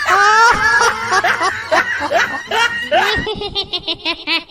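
A person laughing, a snickering laugh that turns into quick, evenly repeated 'ha-ha' pulses about three seconds in.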